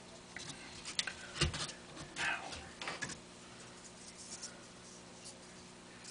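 Faint scattered clicks and light taps, with a short rustle a little after two seconds in.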